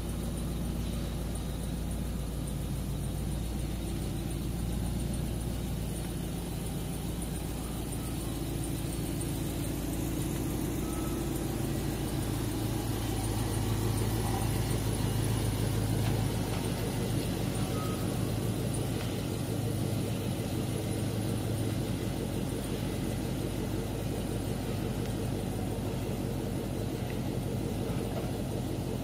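Hemi-engined Willys Jeep truck hot rod running at idle while it is driven slowly, a steady low engine hum that swells a little in the middle.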